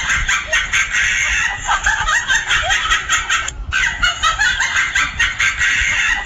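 Comic cackling sound effect: rapid, chattering cackles that run on unchanged across a cut in the picture, broken once about three and a half seconds in.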